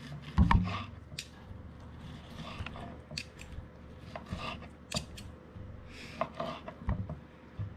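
Knife slicing cooked venison on a wooden cutting board. The blade and a fork give irregular taps and scrapes against the board, with one louder thump about half a second in.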